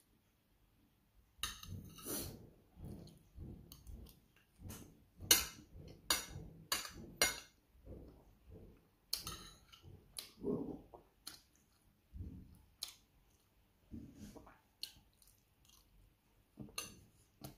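Close-up chewing and mouth smacking of a person eating pork and rice, with short sharp clicks, some of them a spoon and fork tapping a plate. It starts about a second and a half in and goes on irregularly.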